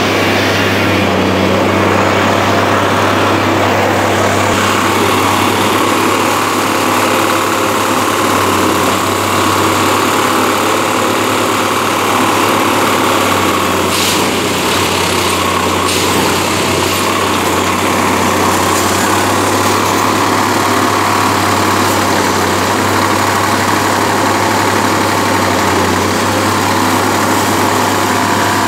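UNIMAT track tamping machine's diesel engine and hydraulics running steadily and loudly, with two brief knocks around the middle.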